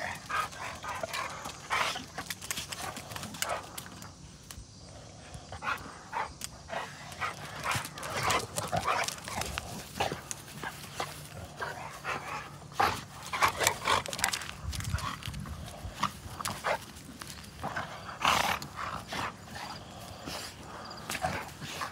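Two pit bulls play-fighting: short, irregular dog sounds and scuffles as they wrestle, loudest bursts in the middle and near the end.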